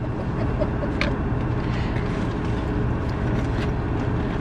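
Steady low hum of a Volvo car heard from inside the cabin, with a faint click about a second in.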